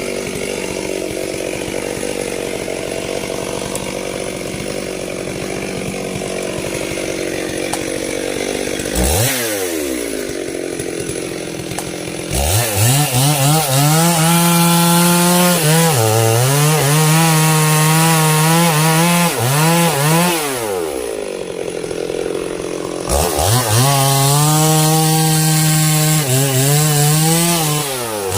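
Stihl chainsaw cutting sengon wood. It runs steadily at a low pitch for about nine seconds, revs briefly, then holds full throttle for about eight seconds with its pitch sagging under load in the cut. It drops back to idle, then goes to full throttle again for about five seconds before easing off near the end.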